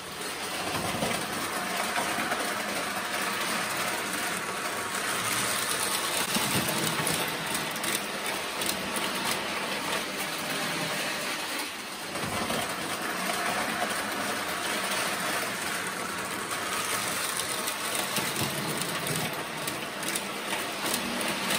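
Prewar Lionel tinplate electric toy train running steadily on three-rail track, with a brief dip in level about halfway through.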